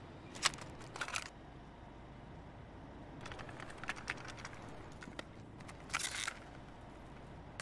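Scattered light clicks and taps over quiet room tone, in a few short clusters.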